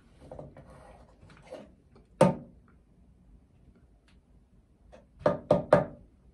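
Quiet room tone broken by a few short clicks: one sharp click about two seconds in and three quick ones close together near the end.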